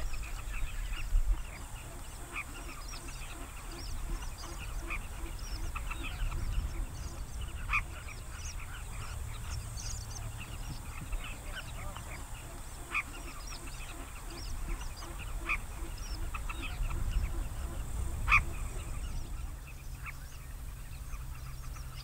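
Many birds calling over one another: short, scattered calls, a few louder than the rest, over a steady low rumble.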